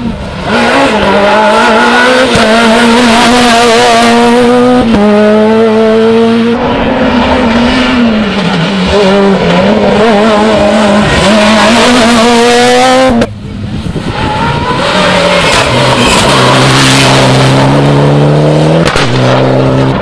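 Rally car engines at full throttle. The first car runs at high revs, its note stepping at quick gear changes. It cuts off suddenly about two thirds of the way in, and a second car's engine follows, climbing in revs as it approaches.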